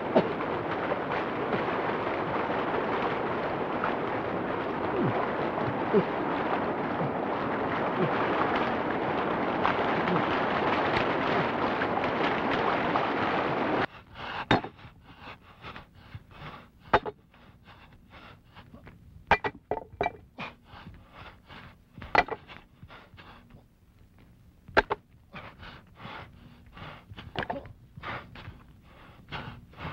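Rushing river water, a steady roar that stops abruptly about halfway through. Then irregular crunching footsteps on stony ground, with stones knocking and clinking.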